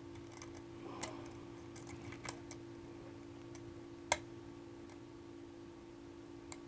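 A handful of faint, sharp metallic clicks, the loudest about four seconds in, as a hook pick sets and rotates the pins of a six-pin biaxial Medeco lock under a pry-bar tensioner, over a steady low hum.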